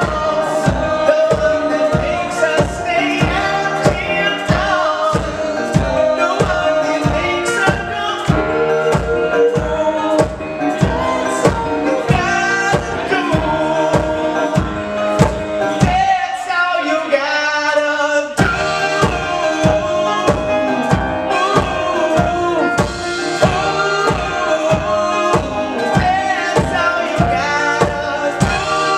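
A live pop-rock band performing: a male lead voice singing over acoustic guitar, keyboard and a steady beat of about two drum hits a second. Just past the middle the drums and low end drop out for about two seconds, then come back in.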